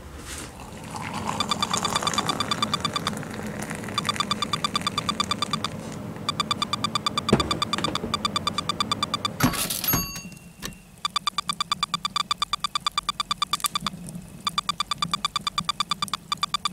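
A narrating voice disguised by a heavy robotic electronic effect: one fixed buzzy tone chopped into rapid, even pulses, about eight a second, in phrases with short pauses between them. There is a sharp click a little over halfway through.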